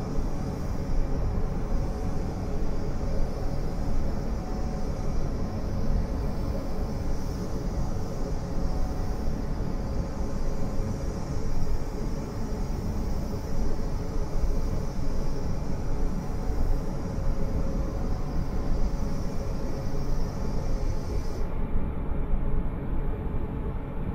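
Steady industrial din of a steelworks converter hall, heard from high under the roof: a dense low rumble with a few steady hums and a high hiss on top. Near the end the high hiss cuts off suddenly, leaving the rumble and hums.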